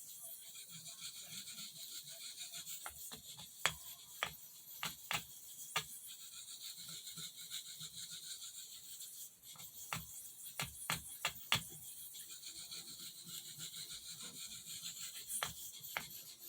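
Steel knife blade worked in circular strokes across a soft Arkansas whetstone: a steady, fine, gritty scraping, with sharp clicks every so often. The blade is being ground to raise a burr on its second side.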